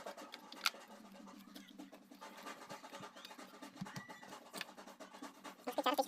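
Plastic parts of a mini Bluetooth speaker being handled and fitted back together: scattered scratching and light clicks, with one sharp click less than a second in, over a steady low hum.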